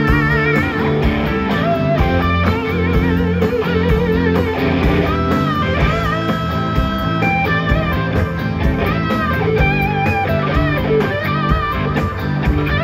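A live blues-rock band playing, led by electric guitar with held, wavering notes that bend in pitch, over bass, drums and keyboards.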